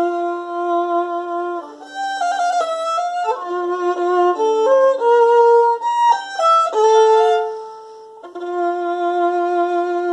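Solo violin played with the bow: a long held note, then a passage of shorter notes moving up and down in pitch, a brief quieter moment, and the long low note held again about eight seconds in.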